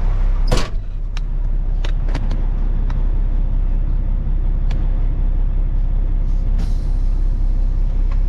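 Dump truck's Cat diesel engine running steadily with a deep drone. A short sharp hiss of air comes about half a second in, a few clicks follow, and another hiss comes near the end.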